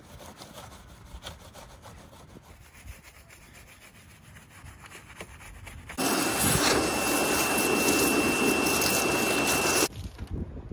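Faint rubbing with small ticks, then a pressure washer's loud steady spraying hiss with a thin high whine. The hiss starts suddenly about six seconds in and cuts off sharply about four seconds later, as the car is washed.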